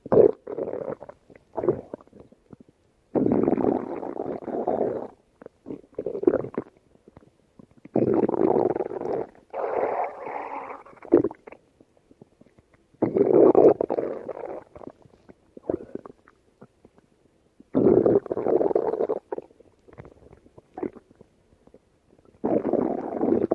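Stomach growling: a series of gurgling rumbles, about six longer growls of one to three seconds each, with short pops and gurgles in the gaps between them.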